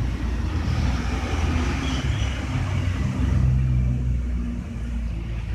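Low, steady rumble of a motor vehicle engine running, with a low hum that swells a little about three and a half seconds in.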